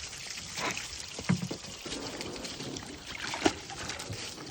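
Water pouring and splashing, with two sharper splashes, about a second in and again about three and a half seconds in.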